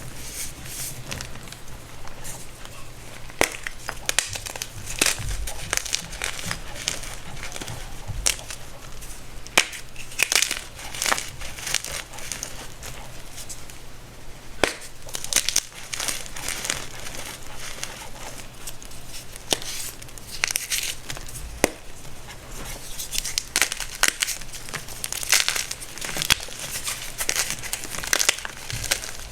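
Homemade baking soda chunks being crushed up close: irregular crisp crunches and crackles, some sharp and loud, as the chalky pieces crumble.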